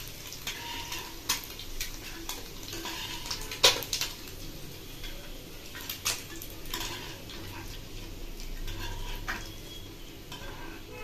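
Metal spatula scraping and clinking against a frying pan as fried egg halves are scooped out of the hot oil. Several sharp clinks come at uneven intervals, the loudest about three and a half seconds in.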